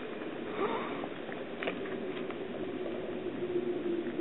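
Light clicks and gravel scuffs from a cat pawing about on gravel, three short ones in the middle, over a steady low hum.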